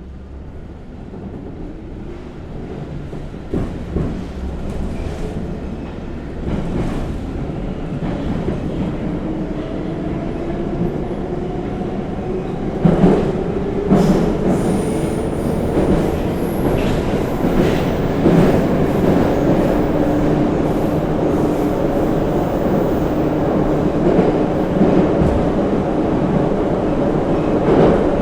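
Moscow Metro 81-717/714 "Nomernoy" train heard from inside the carriage as it pulls away and gathers speed. The traction motor whine rises slowly in pitch under the growing wheel and track rumble, with a few sharp knocks along the way.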